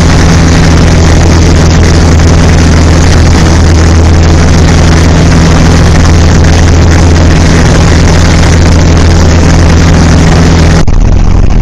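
Light aircraft's piston engine and propeller droning steadily in flight, loud and constant, heard from inside the cabin. Near the end the drone changes abruptly, one steady hum dropping out.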